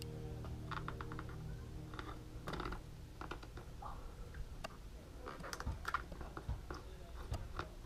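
Faint, irregular small clicks and crackles of fingers handling the lifted edge of a wet, clear plastic grip sheet on a kneeboard deck, over a faint low hum for the first few seconds.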